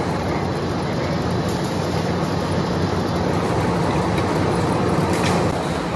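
Steady running noise of a steel wire-drawing line, with machinery rumbling evenly as the wire feeds through the guide pulleys. A brief clatter comes about five seconds in.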